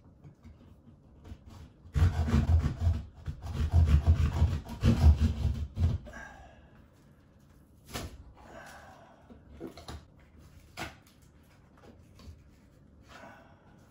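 Hand drywall saw cutting a round hole in a plaster-textured ceiling, with rough rasping back-and-forth strokes for about four seconds. A few faint taps and scrapes follow as the cut-out piece is worked free.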